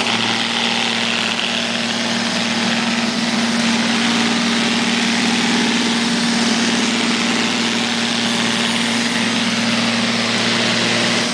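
Neato robot vacuum cleaner running: a steady motor hum with a continuous whirring hiss over it.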